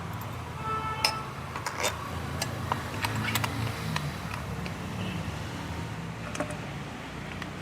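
Scattered light clicks and taps of metal engine parts being handled, over a steady low background hum.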